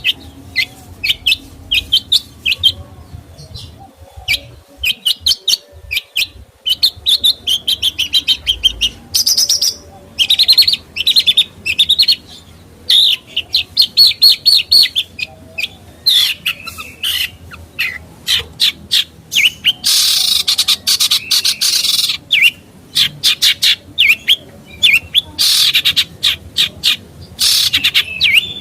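A songbird singing in rapid runs of short, high chirps and trills, broken by a few longer harsh, rasping calls in the second half.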